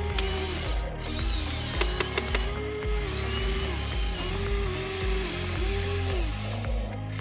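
Huina 593 1/14-scale RC excavator's electric motors whining, the pitch sagging and recovering several times as the machine takes load while digging, with a few sharp clicks about two seconds in. Background music with a steady bass beat plays under it.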